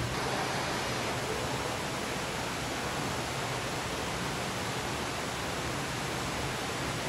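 Steady, even hiss of falling water from an indoor animal exhibit's water feature.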